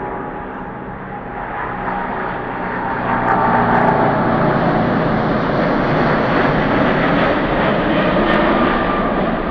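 Airbus A330 jet engines at takeoff thrust during the runway roll: a steady rumble with a hum of engine tones, growing louder two to four seconds in as the airliner passes close, then holding.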